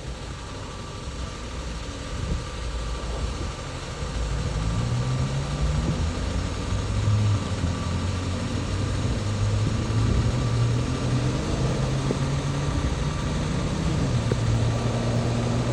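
Car engine running, getting louder over the first few seconds, with its low pitch drifting slowly up and down.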